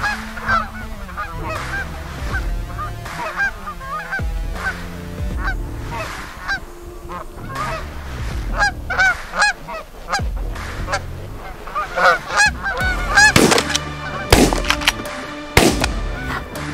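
A flock of Canada geese honking overhead, many calls overlapping. Near the end, three loud sharp bangs about a second apart: shotgun shots.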